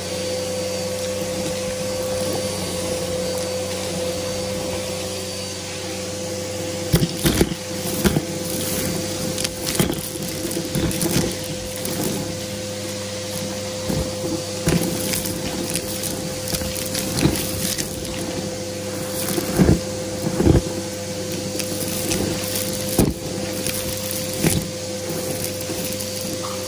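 Aeroswift vacuum cleaner running with a steady motor whine while it sucks up crunchy debris. From about seven seconds in, irregular clicks and rattles come as bits are pulled through.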